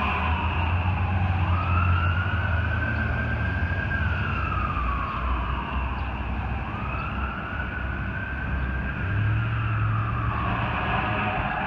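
Federal Q2B mechanical siren on a fire engine wailing, winding slowly up in pitch and back down twice, over a steady low rumble.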